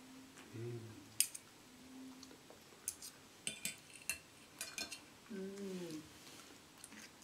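Knife and fork clicking and scraping against a plate as a piece of fried pork is cut, in scattered light clinks. A short low hum of a voice comes twice, about half a second in and around five seconds in.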